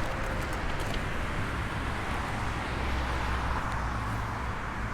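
Steady rushing noise with a low rumble while riding a bicycle: wind buffeting the microphone, with a few faint ticks.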